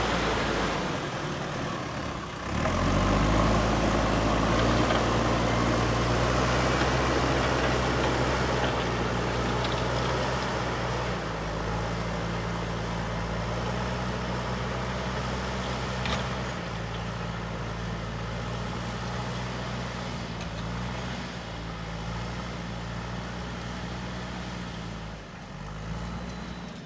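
JCB backhoe loader's diesel engine running under working load. Its pitch climbs about two seconds in, then rises and falls several times as the machine works, and it drops away near the end.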